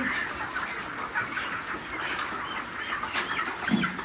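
Large flock of broiler chickens calling: many short, overlapping peeps and clucks.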